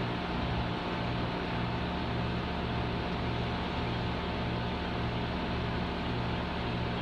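A compressor running steadily: a constant motor hum with a low drone that pulses slowly and evenly, over a steady hiss.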